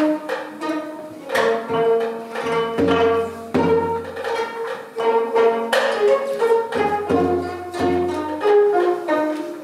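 Gayageum ensemble playing a melody in traditional Korean style: a run of plucked silk-string notes, some of them held and bent.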